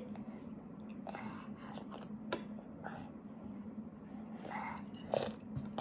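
A toddler eating soup: a spoon clicking and scraping against the inside of a small mug, with a few soft eating noises, over a steady low hum.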